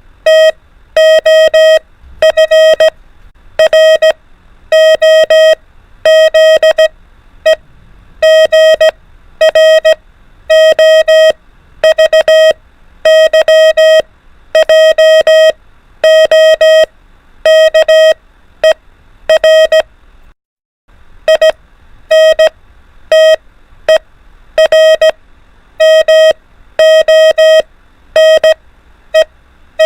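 Morse code practice tone: a steady mid-pitched beep keyed on and off in dots and dashes at 24 words per minute, sending single letters of the alphabet one after another with short pauses between them. A brief gap of silence comes about twenty seconds in.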